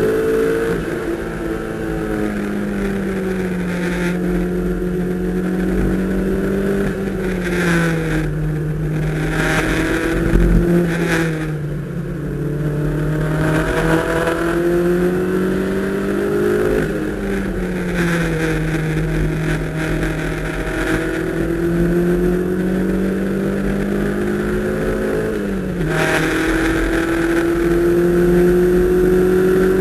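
Toyota MR2's engine heard from inside the cabin at speed on a race track, its pitch repeatedly climbing under acceleration and dropping sharply at lifts or gear changes, with road and wind noise over it.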